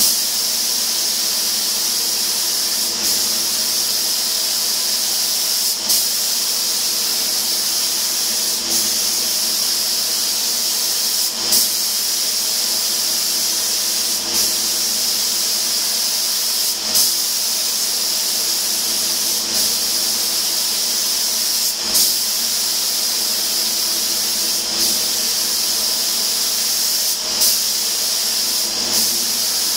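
Siphon-feed spray gun spraying paint: a steady high hiss of compressed air and atomised paint, with a brief louder click or surge about every three seconds.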